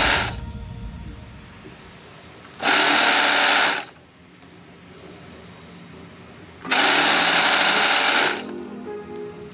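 Sewing machine stitching in two short runs, each lasting a second or so, with pauses between them.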